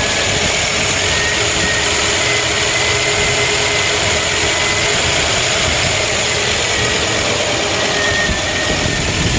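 Ford 351 Windsor V8 idling unevenly on a Motorcraft 2150 carburetor, under a steady hiss of aerosol carb cleaner sprayed at the carburetor. The spraying is a vacuum-leak test: the leak is at a crack in the carburetor casting where the fuel filter screws in.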